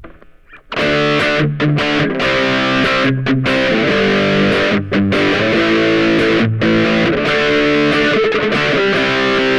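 Ibanez GAX30 electric guitar played through two stacked overdrive pedals, an OCD-type Maniac into a TC9, on its Belcat neck pickup: overdriven chords and riffs with rich harmonics, starting under a second in after a brief pause, with a few short breaks between phrases.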